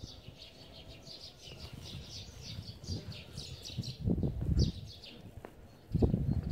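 Songbird chirping: a quick run of short, high, falling notes, several a second, that breaks off near the middle and comes back briefly. Two bouts of low rumbling noise, about 4 s in and again after 6 s, are louder than the birdsong.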